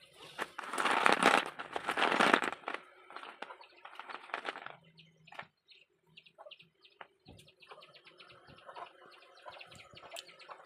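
Slate pencils being ground, with two loud gritty crunching stretches in the first couple of seconds, then quieter scattered crackles and faint rapid ticking.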